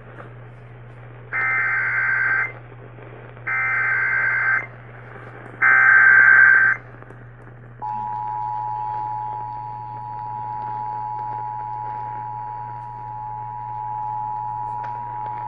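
Emergency Alert System tones received over AM radio. First come three one-second bursts of the SAME digital header, a warbling data screech. Then, about halfway through, the two-tone attention signal starts: a steady dual tone that keeps going, announcing a severe weather warning.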